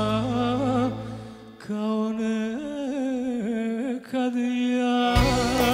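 Live band music: a sung note held with vibrato fades out, then a solo melodic line carries on over a sparse accompaniment without bass. About five seconds in, the full band with bass and drums comes back in.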